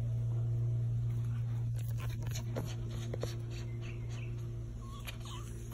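Small dog whining, a couple of short whines about halfway through, over a steady low hum.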